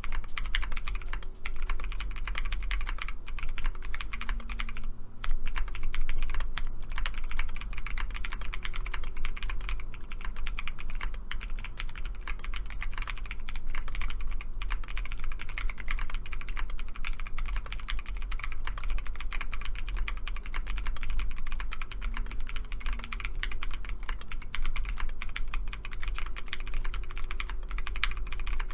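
Continuous typing on a Paragon 75 custom mechanical keyboard built with lubed and filmed TKC Dragon Fruit tactile switches, a polycarbonate plate and KAM keycaps: a dense stream of keystrokes with a brief pause about five seconds in.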